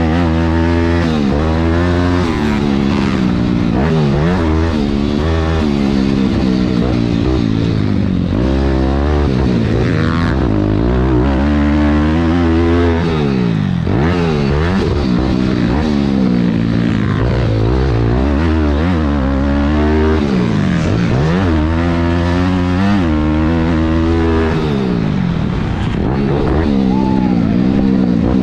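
Single-cylinder four-stroke engine of a Thumpstar 190 pit bike being ridden hard, its pitch rising and falling every second or two as the throttle is worked through corners and jumps.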